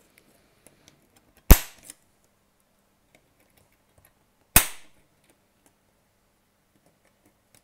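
Two sharp snaps about three seconds apart: a hand-held rivet removal tool pressed onto keyboard rivets in a MacBook's aluminium top case, popping each rivet off.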